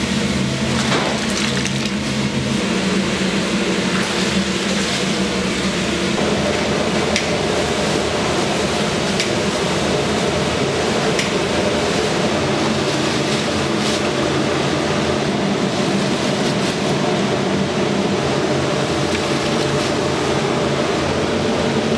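Machinery running steadily with a low hum, with a few light clicks in the first several seconds.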